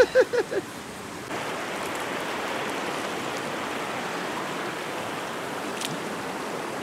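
A short burst of a person's voice at the very start, then from about a second in the steady, even rush of a muddy river flowing over shallow rapids.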